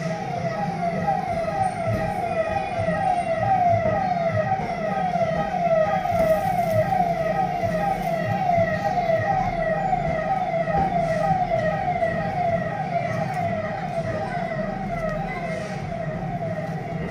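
An electronic siren-like tone sounding continuously in quick, evenly repeated falling sweeps, over a steady low hum.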